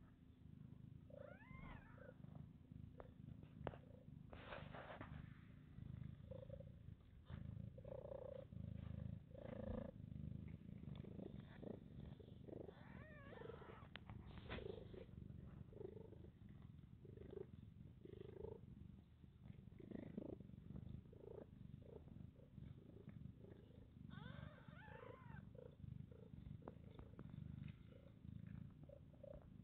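Mother cat purring faintly and steadily while she licks her newborn kittens, with short high squeaks from the kittens a few times.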